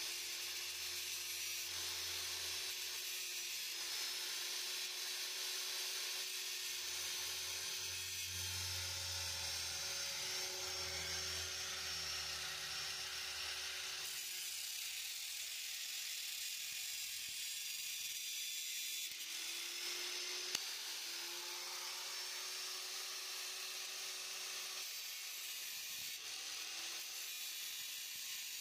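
Angle grinder running with an abrasive disc and grinding through the nut of an exhaust flange bolt: a steady high grinding hiss over the motor's whine, which dips in pitch now and then as the disc bites.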